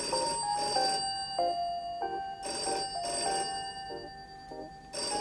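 Telephone bell ringing in the British double-ring pattern: two short rings, then a pause, repeated three times about two and a half seconds apart, over quiet background music.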